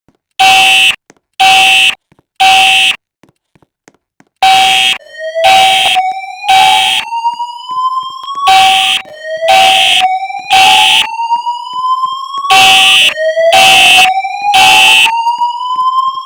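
Fire alarm horns sounding the temporal-three evacuation pattern: three short loud blasts, a pause, then three more, over and over. About five seconds in, the voice-evacuation speakers add a slow whoop tone that rises in pitch over about four seconds and repeats, the alert tone that leads into the evacuation message.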